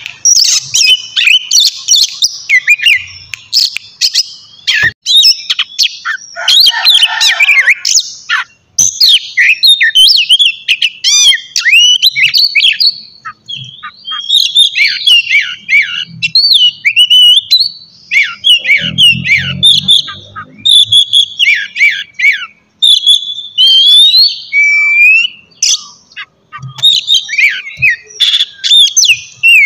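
Oriental magpie-robin (kacer) singing loudly, a rapid, varied run of whistles, trills and sharp sliding notes with few pauses.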